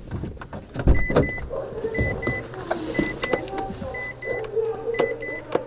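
Electronic warning beeps, a short high double beep repeating about once a second, with scattered clicks and knocks around them.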